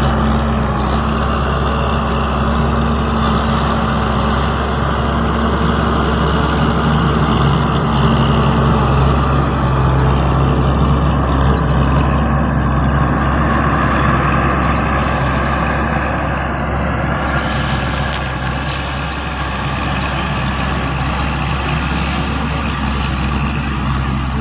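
Kangro rice-field tractor's diesel engine running steadily under load as it ploughs through a flooded rice paddy. It is loudest as it passes close by midway and drops a little as it moves off.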